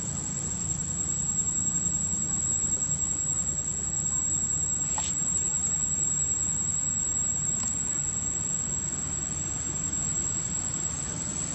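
Steady outdoor background: a constant high-pitched insect drone over a low rumble, with a couple of faint clicks about halfway through.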